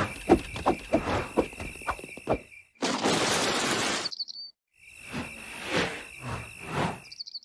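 Night crickets chirping in a steady pulsing trill, broken about three seconds in by roughly a second of steady rushing daytime noise and a short bird tweet, then crickets again, with another short tweet near the end: cartoon ambience cycling between night and day to show time passing.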